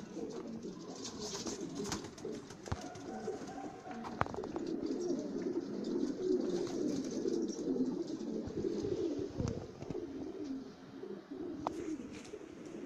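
A flock of domestic pigeons cooing together in a steady, overlapping low chorus, with a few sharp taps and clicks mixed in.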